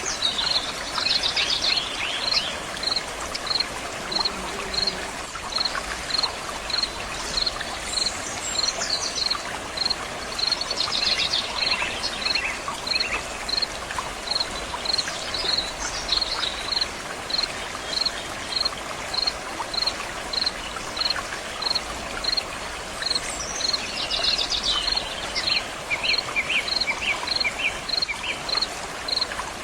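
Stream water running steadily, with a high chirp repeating evenly a little faster than once a second and birds singing in short phrases now and then.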